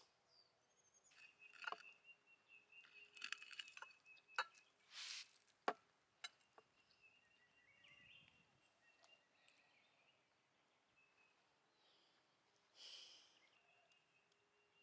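Quiet outdoor ambience with scattered small clicks and clinks and a few brief rustles, over a faint steady high-pitched tone.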